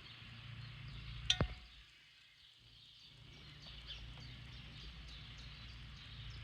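Faint outdoor ambience with small birds chirping thinly and a low background hum. A single sharp click comes about a second in, and the sound cuts out completely for over a second before the ambience returns.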